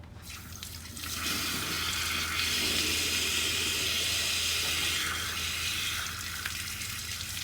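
Airsoft Mk18 rifle firing a long full-auto burst, a continuous rapid rattle starting about a second in and easing off around six seconds.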